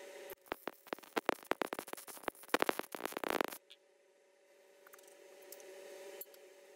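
MIG welder arc crackling and spitting as a short weld is laid on steel tubing, lasting about three seconds before it cuts off. A steady hum runs underneath.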